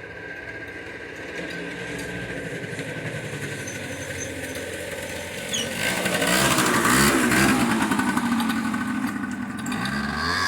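Motorbike engine running, growing louder about six seconds in as it passes close, its pitch rising and falling, then easing off.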